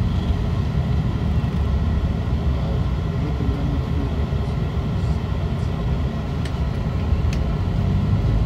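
MCI D4505 motorcoach's diesel engine and drivetrain rumbling steadily as heard from inside the passenger cabin while the coach rolls slowly away. A couple of faint clicks come near the end.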